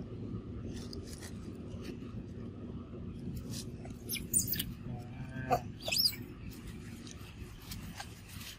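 Three short, high-pitched animal calls with sweeping pitch, a little after four seconds in, about five and a half seconds in and about six seconds in. They sound over a steady low background noise with a few scattered light clicks.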